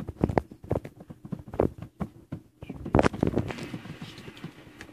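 Four-week-old Bich-Tzu puppies scuffling and pawing at each other as they play in their box: a run of irregular soft knocks and thumps, the loudest about three seconds in.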